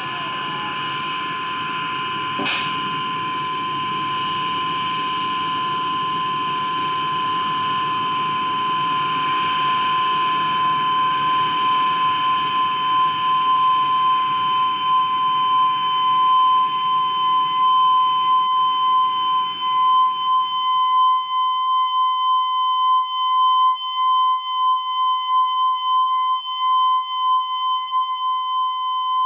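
A steady, piercing high-pitched electronic tone that grows louder throughout, over a noisy low rumble that fades away about two-thirds of the way through. In the last third the tone wavers and pulses rapidly. There is a sharp click about two and a half seconds in.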